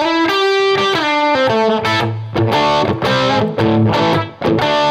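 Gibson Les Paul electric guitar played through an amplifier: a continuous run of picked notes and chords.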